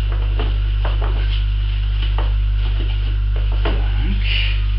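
Fabric backpack being handled while silicone hoses are tucked into its inner pocket: nylon rustling and a few light knocks, over a loud steady electrical hum.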